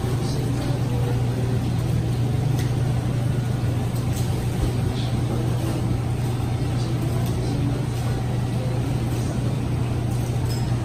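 Steady low engine and road drone of a car, heard from inside the cabin while driving, with a few faint clicks.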